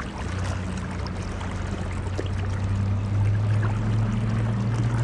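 River water rushing steadily, with a steady low hum underneath.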